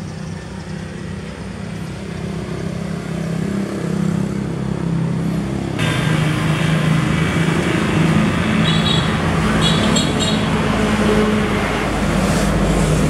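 A motor running with a steady low hum, plus a hiss that jumps up abruptly about six seconds in and stays loud.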